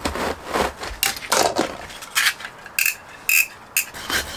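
Blade of a large utility knife being dragged through a van's thick rubber floor mat in short, separate scraping strokes, two of them squeaking in the second half; the tough rubber is resisting the cut.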